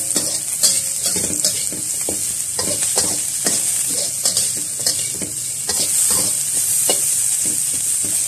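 Sliced ginger, lemongrass and shallots sizzling in hot oil in a steel wok as they are sautéed until fragrant. A steady hiss runs under irregular scrapes and knocks of a metal spatula against the pan, about one or two a second.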